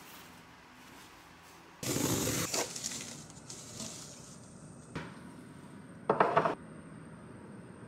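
Handling noises of camping gear: a short burst of rustling about two seconds in, a single click at about five seconds, then a brief clatter as a metal gas canister is set down on a wooden cabinet shelf.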